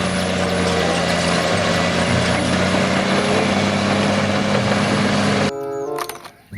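A steady motor running, a low hum under a loud even hiss, that cuts off abruptly about five and a half seconds in.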